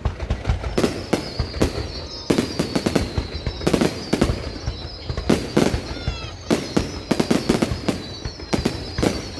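Fireworks going off in a dense barrage: loud sharp bangs several times a second, with high whistling tones sliding slowly downward through them.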